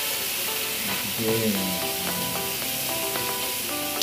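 Thin slices of beef sizzling in a tabletop hot pot: a steady frying hiss.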